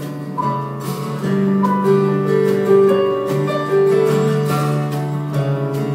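Two acoustic guitars playing a slow instrumental passage, strummed with some held and picked notes.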